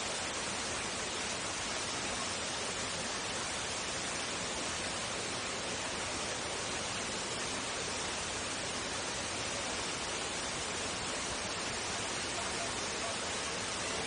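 Steady rushing of the waterfall and the water running through the rocky creek below it: an even hiss with no breaks.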